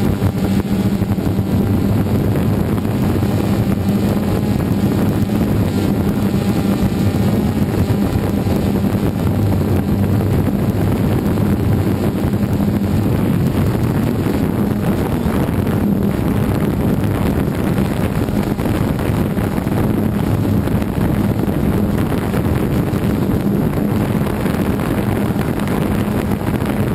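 DJI Phantom 2 quadcopter's motors and propellers humming steadily as it hovers, heard from the camera mounted on the drone, with rotor wash buffeting the microphone.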